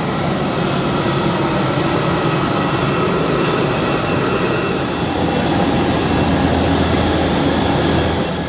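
Jet engine noise: a loud, steady rush with high whining tones that cuts off suddenly near the end.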